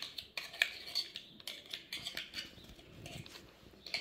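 A spoon scraping and tapping in a tall plastic beaker of thick homemade mayonnaise: scattered light clicks and soft scrapes.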